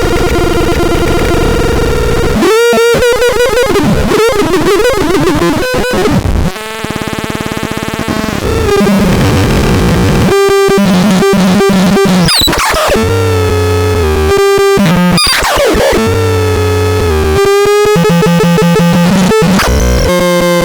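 Harsh electronic synthesizer sounds from the TENECHLOT being demonstrated. Held buzzy tones break into stuttering, glitchy pulses, with quick pitch sweeps and low pulsing bass notes. A thinner buzz drops the level briefly near the middle.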